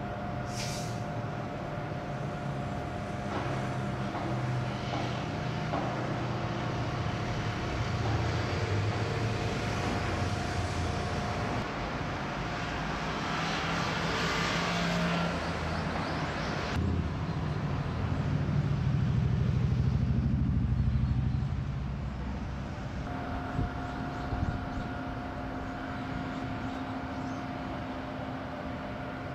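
Shipyard and harbour ambience heard from a distance: a steady machinery hum over a low, shifting engine rumble, which swells for a few seconds about two-thirds of the way through.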